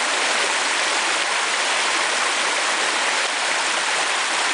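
Shallow, rocky forest stream flowing over stones and small riffles: a steady, even rush of water.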